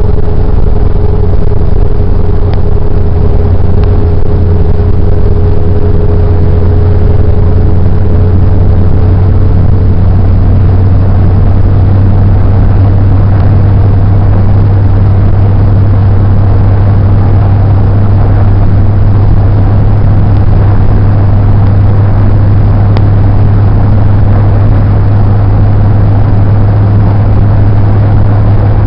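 Steady engine and road noise of a moving car, heard from inside the cabin, with a faint hum that drifts slowly up in pitch.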